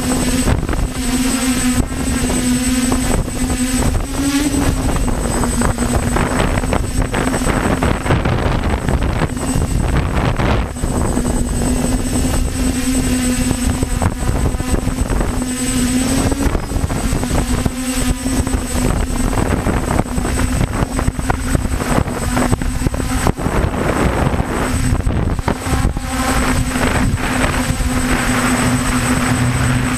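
DJI F450 quadcopter's electric motors and propellers humming steadily in flight, the pitch rising briefly a few times as the motors correct. Heavy wind is buffeting the microphone on the airframe.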